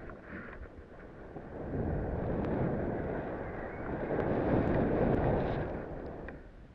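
Wind rushing over the microphone and the hiss of a rider sliding through deep powder snow, building in intensity through the middle and fading as the rider slows to a stop near the end.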